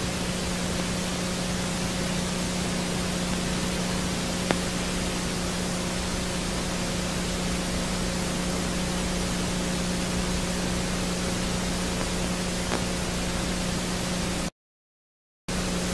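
Steady hiss with a low electrical hum underneath, the noise of the recording itself, with no other sound in it. One faint click comes about four and a half seconds in, and the sound cuts out to total silence for about a second near the end.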